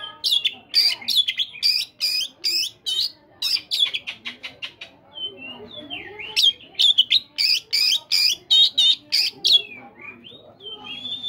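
Oriental magpie-robin (kacer) singing: fast runs of sharp, repeated chattering notes, a stretch of whistled glides about halfway through, then a long level whistle near the end.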